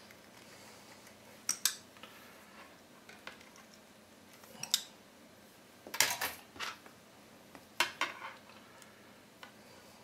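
Needle-nose pliers and stiff antenna wire being handled on a desk: scattered light metallic clicks and clinks, a pair about a second and a half in, with the loudest clusters around six and eight seconds in.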